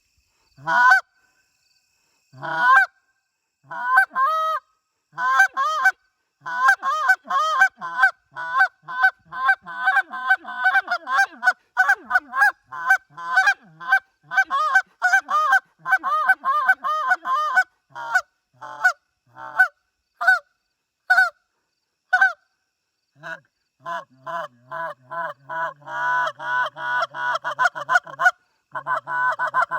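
Bird's eye maple wood goose call blown by hand: a few single honks, then a long fast run of clucks and honks, a few spaced honks again, and another fast run near the end.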